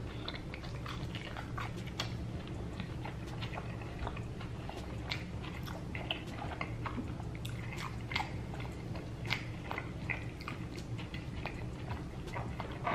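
A person biting and chewing tacos, with many small irregular crunches and mouth sounds.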